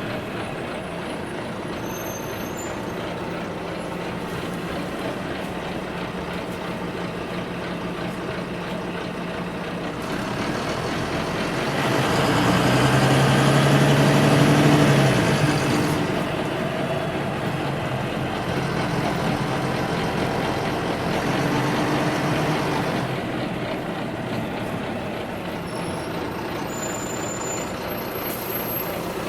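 Inside a city bus underway: the engine and road noise run steadily, and the engine note swells louder about halfway through, then eases back down.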